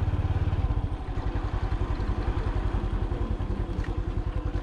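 A vehicle engine running at low revs with a rapid, even chugging pulse, as it idles or creeps along slowly. A sharp click comes near the end.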